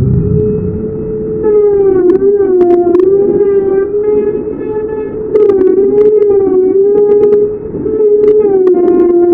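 Electric wood router running at high speed and cutting grooves into a wooden door panel. Its whine sags in pitch each time the bit bites into the wood and then recovers, with sharp crackles of chips being thrown.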